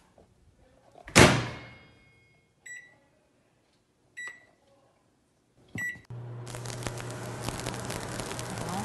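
Microwave oven door shut with a sharp clunk, then three keypad beeps about a second and a half apart; after the last beep the microwave starts heating, running with a steady low hum and fan noise.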